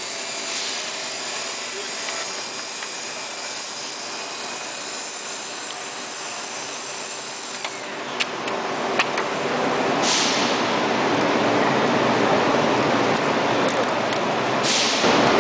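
Profile wrapping machine running: a steady mechanical whir and hiss, with a few sharp clicks about eight seconds in. From about ten seconds in the noise grows louder, with two short hissing swells.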